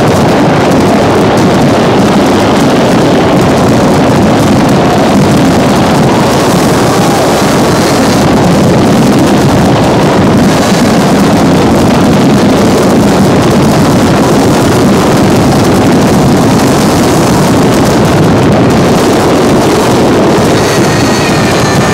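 Fireworks display at its finale: a dense, unbroken barrage of bursts that run together into one loud, continuous rumble with no gaps between bangs.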